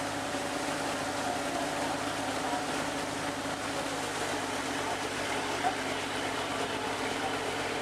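A boat's engine running steadily, giving a low hum with several steady tones, over the rush of river water and wind.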